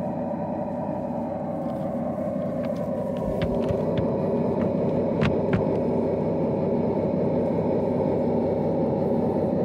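Simulated diesel engine sound from the sound module of a 5-inch gauge, battery-electric MaK 1200 model locomotive: a steady idling hum that rises a little in pitch and loudness about three seconds in, with a few light clicks.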